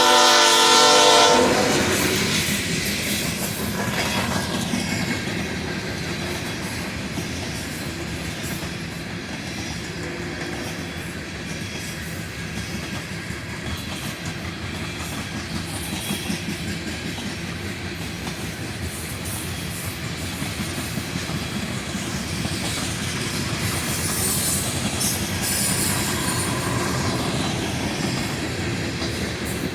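A diesel locomotive horn sounds and cuts off about a second in. A coal train's cars then roll past with steady wheel-on-rail rumble and clickety-clack.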